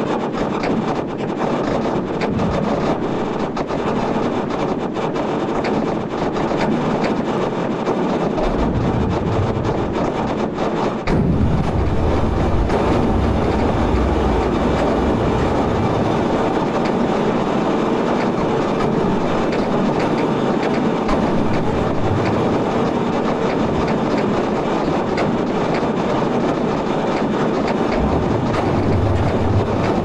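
Sonified earthquake catalogue played with a seismicity animation: many sped-up earthquakes heard as one dense, continuous noise. About 11 seconds in it turns louder and deeper, at the point where the M9.2 Sumatra earthquake of December 2004 and its aftershock sequence arrive.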